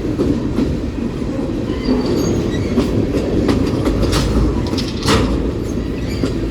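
Freight train cars rolling past: a steady heavy rumble of wheels on rail, with sharp clacks at irregular intervals as wheels cross rail joints.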